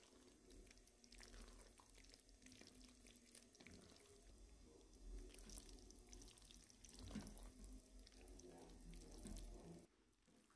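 Faint, irregular bubbling and popping of tomato sauce simmering around small pasta in a pot over low heat, over a low hum; it cuts off sharply just before the end.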